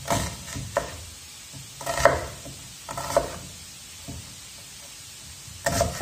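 Kitchen knife chopping a white onion on a wooden cutting board: separate, unevenly spaced knocks of the blade through the onion onto the board, some with a short metallic ring.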